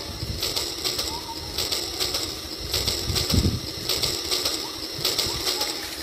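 A toy train runs along track laid through shallow water, with irregular hissing swishes and a low thump about halfway through. Birds chirp faintly in the background.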